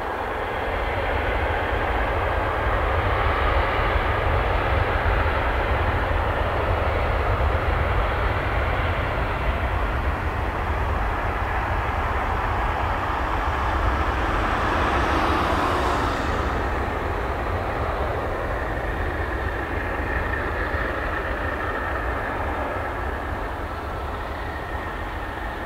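Boeing 737-800's CFM56-7B jet engines at takeoff power during the takeoff roll: a loud, steady rumble that swells about a second in and slowly fades as the airliner moves away down the runway.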